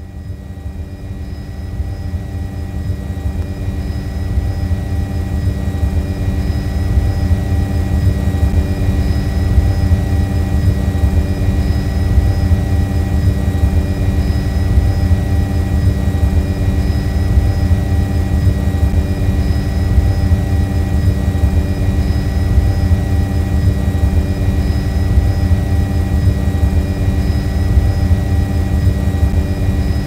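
Quadcopter drone's motors and propellers buzzing steadily: a steady whine over a heavy low rumble, growing louder over the first several seconds and then holding level.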